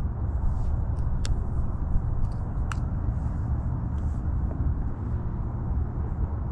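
Wind buffeting the microphone in a steady low rumble, with two sharp clicks about a second and nearly three seconds in.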